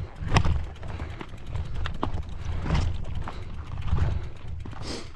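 Freehub of a loaded gravel bike ticking rapidly as the bike is pushed uphill, its rear wheel turning while the pedals stay still, with irregular knocks from the bike jolting over rocks.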